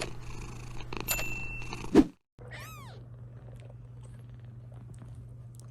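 Rustling, ending in a sharp bump about two seconds in. After a short break a young British shorthair kitten gives one short mew, rising and falling in pitch, over a faint low hum.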